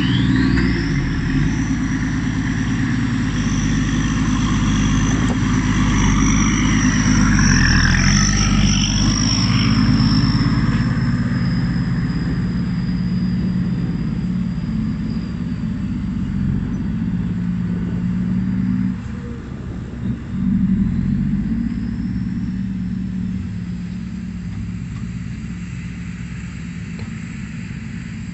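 Loaded Isuzu Deca dump truck's diesel engine pulling away and driving off, with a high whine that rises sharply at the start and then holds. The engine note dips briefly and picks up again about two-thirds through, then slowly grows fainter.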